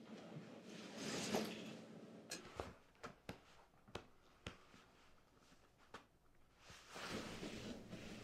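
Faint clothing rustle as two people hold a hug, with a scattered series of about six or seven light, sharp pats of hands on a back in the middle of it.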